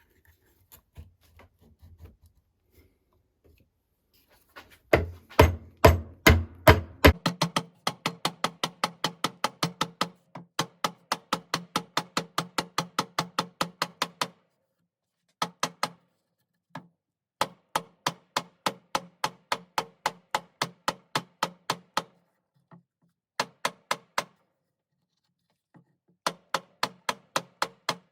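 Quick, evenly spaced tapping strikes, about five a second, in several runs with short pauses. Each strike rings briefly, and the first few, about five seconds in, are heavier and deeper.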